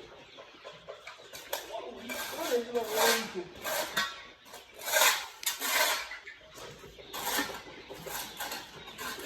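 Irregular scraping and rustling: a string of short rasping strokes, roughly a second apart.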